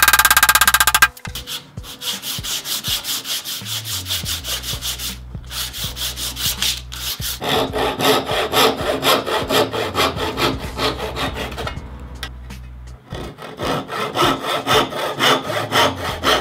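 Hand backsaw cutting across a piece of oak in quick, even back-and-forth strokes. The strokes grow louder about halfway through, pause briefly, then carry on.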